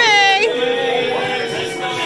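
Music with singing voices: a quick sliding note, then long held sung notes.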